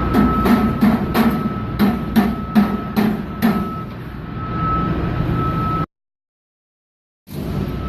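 Hammer tapping on sheet-metal duct, about nine quick strikes at two to three a second that stop about three and a half seconds in, over a steady hum with a thin high whine. The sound cuts out completely for over a second near the end.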